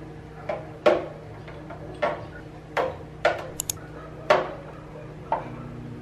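Irregular knocks and clinks of kitchen items being handled and set down, about eight in all, one with a brief high ringing clink about halfway through, over a faint steady hum.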